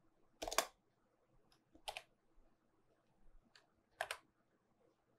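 A few separate computer keyboard keystrokes, with the most distinct ones about half a second, two seconds and four seconds in and fainter key taps between, as a typo in a line of text is corrected.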